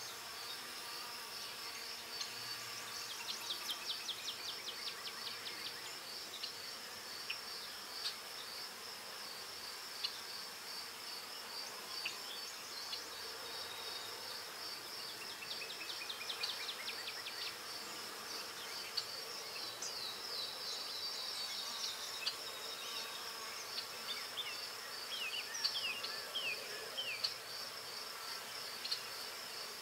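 Graphite pencil scratching on paper in runs of quick, short strokes, as when hatching shading and flicking in brow hairs. Under it, a steady high pulsing trill.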